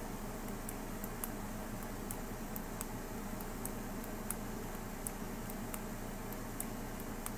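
Steady room hum and hiss with faint, short high-pitched ticks at irregular intervals, about one or two a second.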